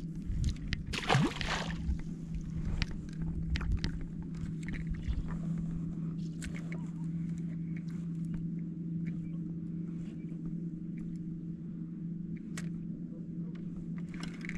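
Boat motor running with a steady hum, over scattered knocks and clicks. A short rushing noise with a rising pitch comes about a second in.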